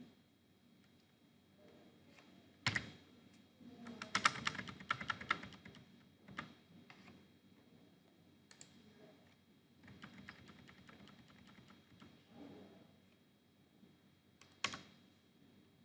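Computer keyboard typing with separate sharp clicks: a quick run of keystrokes about four seconds in, a lighter run later, and single louder clicks scattered between.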